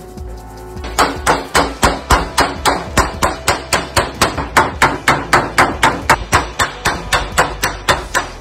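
Hammer striking the steel edge of a 1958 Volkswagen Type 2 door, working a dent out in a quick, even series of sharp metallic blows, about four a second, starting about a second in.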